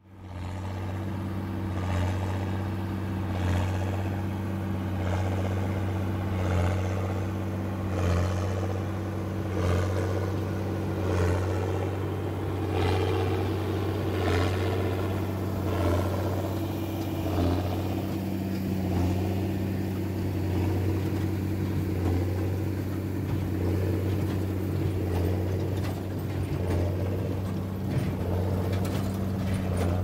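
Massey Ferguson 7495 tractor running steadily under load while pulling a New Holland BB940 large square baler that is baling hay. A regular beat from the baler comes about every second and a half over the steady engine sound.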